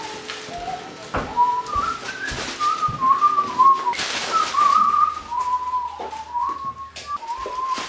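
A person whistling a tune, one note at a time with glides between notes, over a few sharp knocks.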